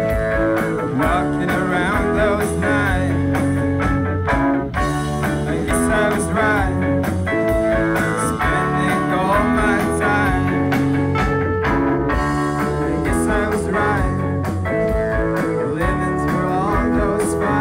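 A rock band playing a song: guitars and a steady drum beat under a sung melody.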